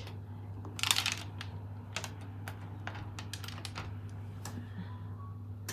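Washing machine controls clicking as a normal wash programme is set: a run of small irregular clicks, with a louder noisy burst about a second in.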